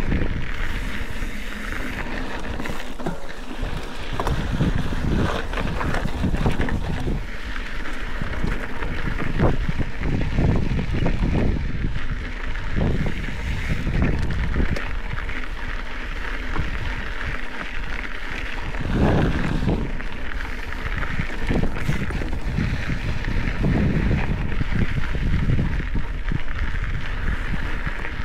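Specialized Epic 8 Evo mountain bike rolling over a dirt desert singletrack: tyres crunching on the gravelly trail with irregular low thumps and rattles over bumps, and wind buffeting the microphone.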